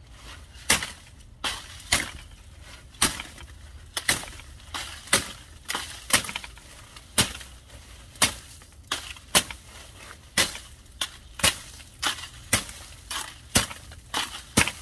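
Machete chopping repeatedly at a plant stalk: a long run of sharp strikes, about two a second.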